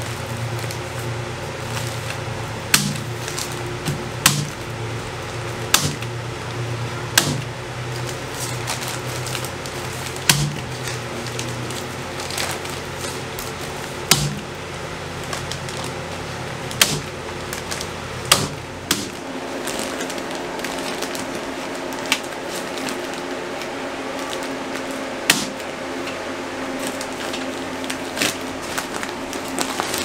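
Corded electric staple gun firing staples through the paper flanges of fiberglass insulation batts into wooden studs: a sharp snap about a dozen times, irregularly every one to four seconds, over a steady low hum of held tones.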